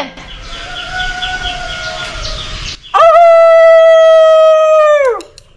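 A man's long, drawn-out shout calling a dog by name, held on one pitch for about two seconds and falling off at the end. It comes after a quieter, hissy stretch with a fainter drawn-out call in it.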